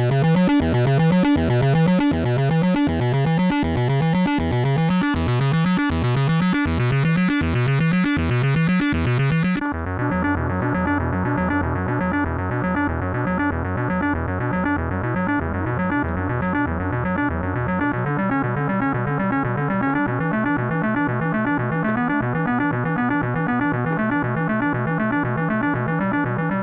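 Donner B1 analog bass synthesizer playing a fast sequenced bass line with its saturation on, the notes sweeping in tone. About ten seconds in the sound changes abruptly, losing its bright top, and carries on as a steadier run of repeating notes.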